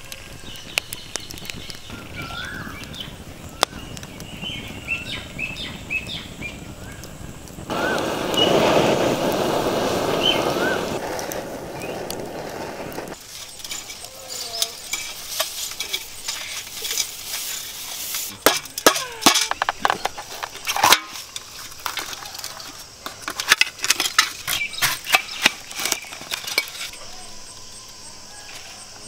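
Wood fire crackling under a coconut roasting in its husk, with a louder rushing stretch of several seconds. Then a knife knocks and cuts into the charred coconut shell on a steel plate, in a quick run of sharp cracks and clinks.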